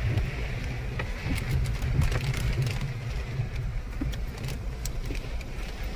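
Car engine running as the car drives over a stony river bed: a steady low rumble with scattered clicks and knocks.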